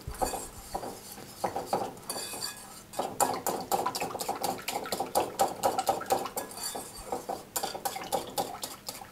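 Wire whisk beating a yogurt, egg and lemon juice mixture in a glass bowl, the wires clinking rapidly against the glass, easing off briefly once or twice in the first three seconds. The liaison is being beaten smooth so that no lumps remain.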